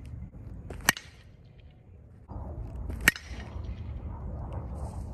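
A metal DeMarini Voodoo baseball bat hitting pitched balls: two sharp pings about two seconds apart.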